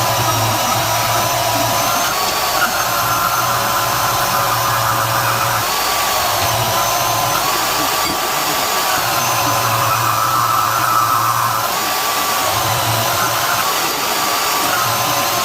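Portable bandsaw running steadily, its motor whine dipping in pitch now and then.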